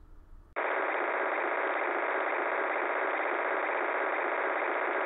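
Digitally encoded radio signal at 152.240 MHz received on an RTL-SDR dongle and played through SDR Sharp's audio as a steady, dense data buzz. It starts abruptly about half a second in.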